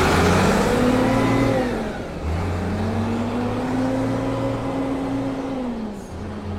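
Ford 7840 tractor's six-cylinder Power Star diesel engine pulling away under throttle. The engine note rises, drops briefly about two seconds in, then climbs again and holds before easing off near the end.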